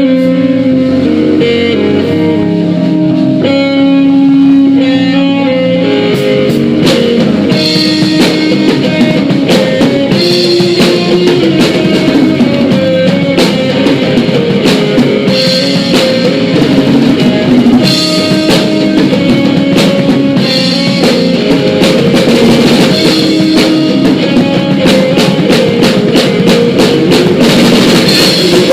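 Live rock band playing a song: electric guitar alone at first, then drums and the full band come in about six seconds in and carry on steadily.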